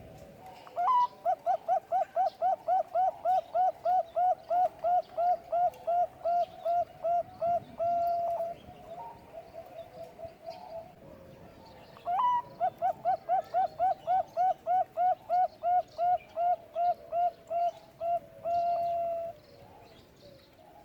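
Zebra dove (perkutut) cooing in two song bouts. Each bout opens with a short rising note, runs into a fast string of about twenty clipped coos, roughly three a second, and ends on a longer held note. A few softer notes come between the bouts.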